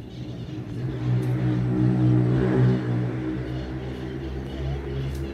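A passing engine: a steady low hum that swells to its loudest about two and a half seconds in and then eases off.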